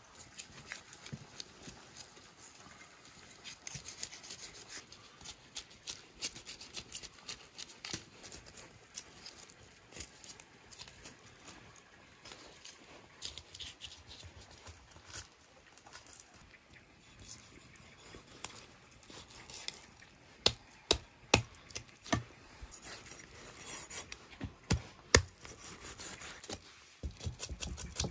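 Knife scraping the scales off a large grass carp: a run of quick scratchy strokes with sharp clicks, growing louder and closer together in the last few seconds.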